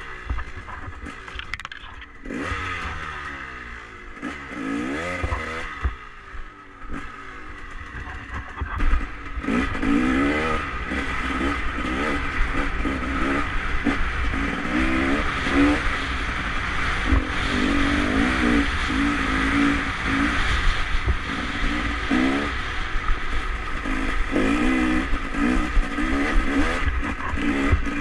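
Enduro motorcycle engine revving up and down as it is ridden over a snowy, muddy track, heard from a helmet-mounted camera. It runs in short, broken bursts of throttle at first and is louder and more continuous from about nine seconds in.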